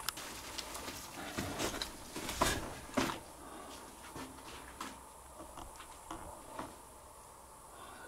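Footsteps scuffing and crunching on concrete and debris: a run of irregular knocks and crackles, denser in the first three seconds, then only a few scattered clicks.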